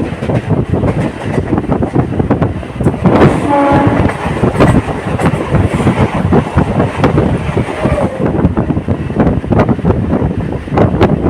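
Indian local passenger train running along the track, with dense, loud rattling and wheel clatter. A short horn note sounds about three seconds in.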